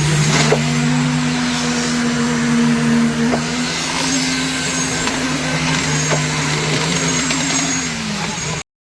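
Concrete pump machine's engine running steadily under load, with faint knocks about every three seconds.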